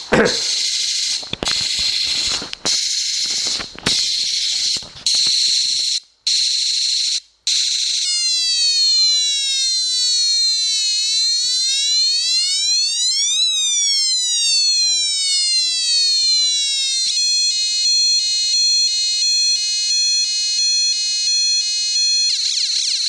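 A cheap electronic sound-effects kit built on CD4011 and CD4066 logic chips, playing through a small speaker as it steps through its effects: first short bursts of hiss about once a second, then a siren-like electronic tone that falls and then rises in pitch, then a stepped pattern of switching beeps, and hiss again near the end.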